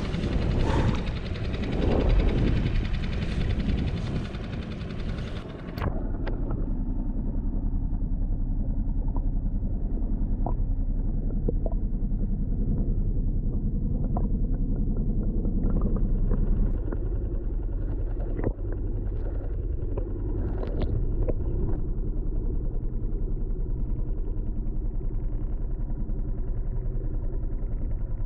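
Wind buffeting and water sloshing against a kayak on open sea. About six seconds in it cuts abruptly to the muffled, steady low rumble of a camera held underwater, with scattered faint ticks.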